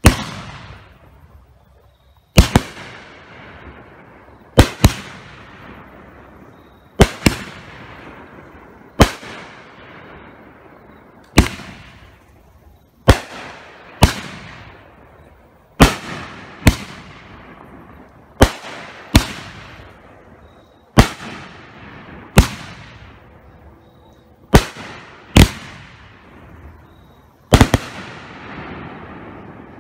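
A 500-gram 12-shot firework cake firing its large ball shells in turn. About twenty sharp bangs come a second or two apart, some in close pairs, and each trails off slowly.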